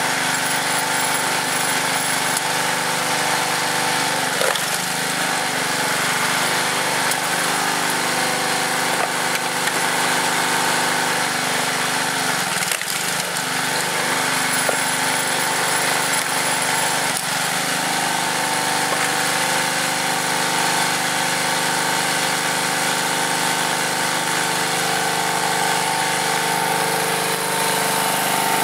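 Tecumseh small engine on a hydraulic log splitter running steadily, driving the pump while logs are split. Its note dips and shifts briefly a few times as the hydraulic ram takes the load.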